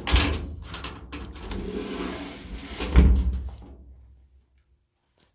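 Metal closet door being moved, with rattling and rubbing, and a heavy thump about three seconds in. The sound dies away over the next second.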